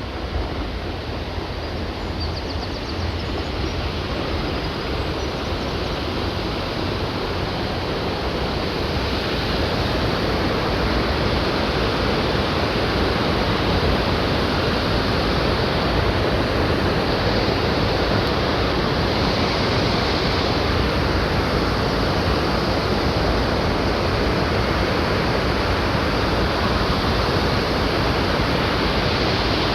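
Waterfall: a steady rush of falling water that grows louder over the first ten seconds or so, then holds steady.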